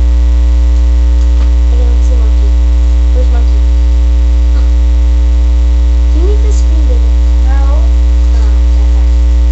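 Loud, steady electrical mains hum with a ladder of overtones, picked up by the recording itself and drowning out the room; faint voice sounds rise and fall under it a few times.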